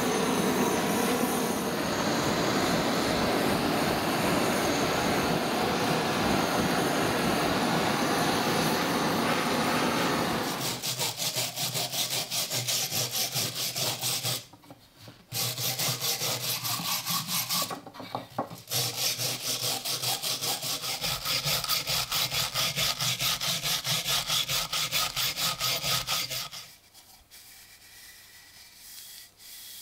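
A handheld butane torch flame hisses steadily for about ten seconds as it scorches a wooden ax handle. Then a wire brush scrubs the charred handle in rapid strokes, with two short pauses, before the sound drops away near the end.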